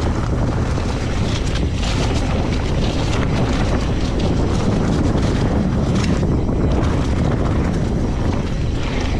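Heavy wind noise on the camera microphone of a mountain bike rolling fast down a dirt trail, with tyres crackling and rustling over dry fallen leaves and small rattles from the bike.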